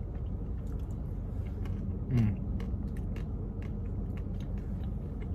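A person chewing a mouthful of Blizzard soft-serve with cheesecake and caramel pieces: many soft mouth clicks and smacks, with a short falling "mm" about two seconds in, over a steady low rumble.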